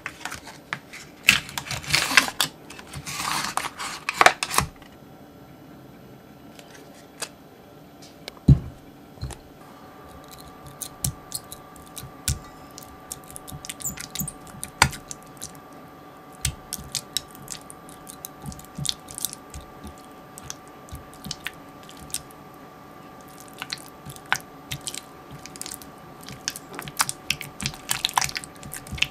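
A cream cheese tub being opened, with crinkling of its packaging for the first few seconds and a single knock a few seconds later. Then an orange coated whisk mashes and stirs soft cream cheese in a glass measuring jug, with many light clicks and scrapes against the glass and soft squishing.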